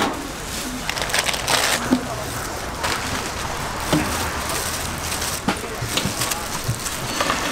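Gloved hands handling coils of blood sausage on a perforated stainless-steel steamer tray, with scattered soft knocks and clicks, over a steady background hiss and crackle of stall noise.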